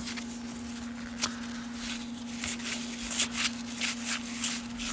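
Cardboard baseball trading cards being slid and flipped through by hand: a run of soft, irregular flicks and rustles of card against card.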